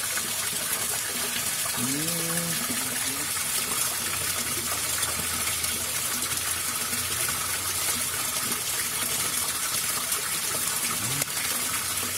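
Water rushing steadily through a drainage channel, with a short voice sound about two seconds in.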